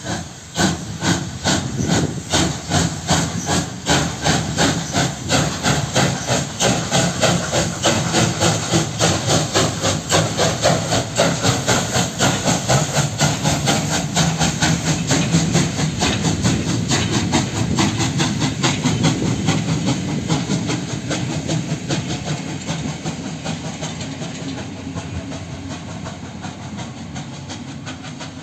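Ol49 steam locomotive pulling away with a passenger train: a fast, even run of exhaust chuffs over steam hissing at the cylinders, growing fainter over the last few seconds as it draws away.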